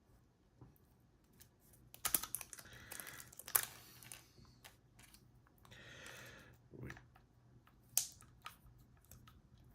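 Light clicks and rattles of a combination padlock being handled, with short scraping passes as a thin aluminium beer-can shim is worked into the gap beside the shackle.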